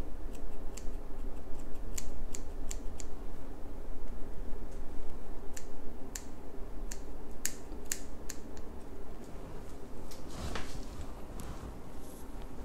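Hair scissors snipping while trimming hair: a dozen or so sharp snips at an irregular pace, over a steady low hum. There is a brief rustle about ten seconds in.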